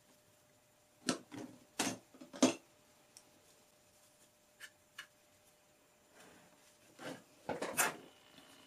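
Short clicks and knocks of paintbrushes and painting supplies being handled on a desk while a brush is switched: a cluster of taps about a second in, two light ticks near the middle, and another cluster near the end.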